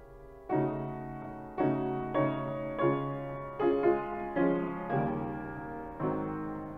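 Slow piano music: notes and chords struck every half second to a second, each left to ring and fade.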